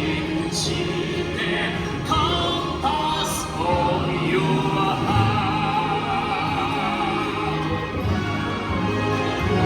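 Orchestral music with singing, the ride's own soundtrack playing through its show scenes.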